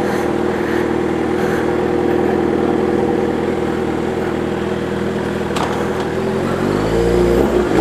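Suzuki GSX-R 750 SRAD inline-four idling steadily through a 4-into-1 aftermarket sport exhaust. Its note rises in pitch near the end as the engine is revved.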